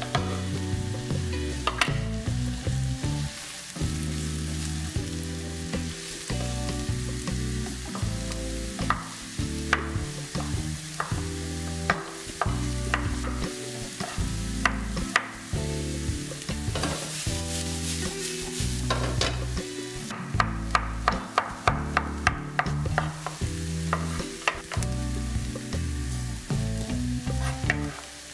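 Diced onion and zucchini sizzling as they fry in a frying pan, with a knife chopping zucchini and carrots on a wooden cutting board. Scattered single chops, then a quick run of chops about two-thirds of the way through.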